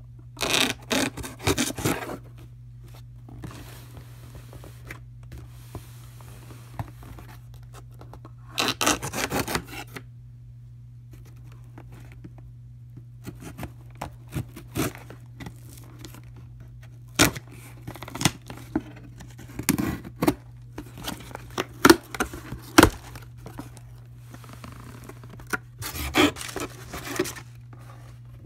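A knife blade slitting the packing tape on a cardboard shipping box: several scraping, tearing strokes of a second or two each, with a few sharp knocks against the cardboard in the middle stretch. A steady low hum runs underneath.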